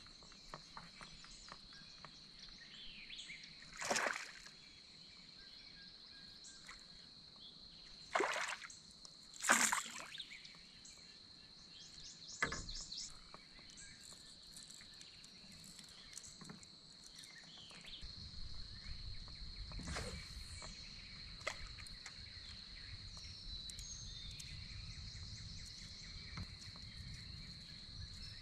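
Water sloshing and splashing a few times around a kayak, over a steady high insect drone. A low rumble joins about two thirds of the way through.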